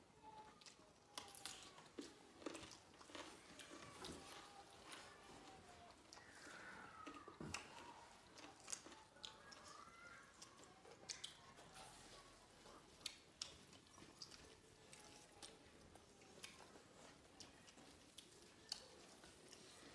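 Faint chewing and mouth sounds of several people eating rice and vegetables by hand, with many small scattered clicks and ticks.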